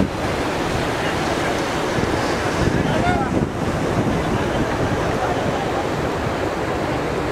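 Steady rushing noise of flash-flood water, mixed with wind buffeting the microphone. Faint voices of onlookers are heard under it.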